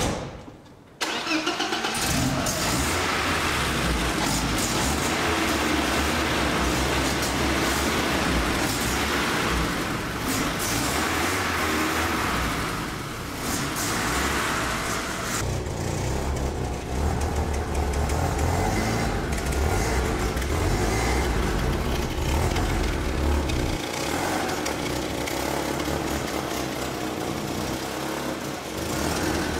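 A car engine running, starting abruptly about a second in, with a low rumble that rises and falls.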